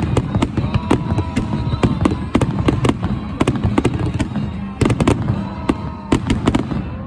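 Fireworks display: a rapid, irregular run of loud bangs and crackles from bursting shells, with music playing underneath.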